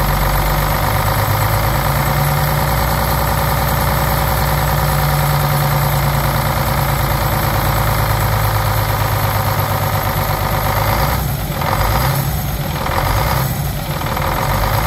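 Detroit 6-71 two-stroke inline-six diesel running steadily at idle, with its rocker cover off so the valve train is open. The sound changes briefly three times near the end.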